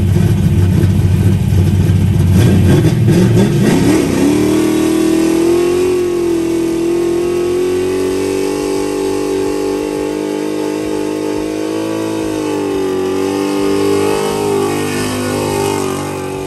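Stroked 408 cubic-inch Ford Windsor V8 running rough and choppy at low revs, then revving up about four seconds in. It holds high revs for about ten seconds while the rear tires spin in a smoky burnout, easing off near the end.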